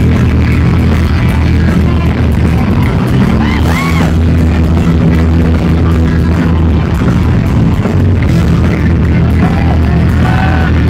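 Heavy metal band playing live and loud, heard up close from within the crowd: electric guitar over bass and drums.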